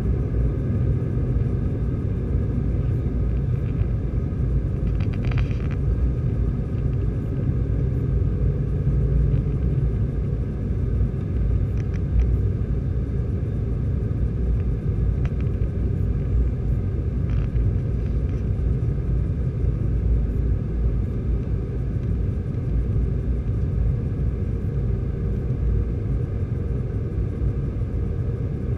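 Steady low cabin rumble inside an Airbus A320-214 on its landing descent, from its CFM56-5B engines and the airflow over the fuselage. A few faint clicks come through it.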